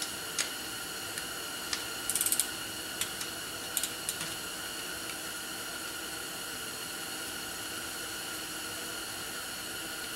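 Wrench working the cap on top of a Yamaha WR250F front fork during reassembly: a few single metal clicks and, about two seconds in, a short quick run of ratchet clicks.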